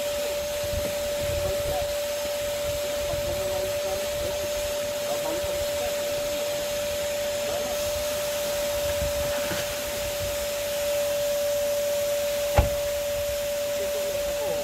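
Vacuum cleaner running steadily with a constant whine over a hiss, cleaning a car's interior. One sharp knock near the end.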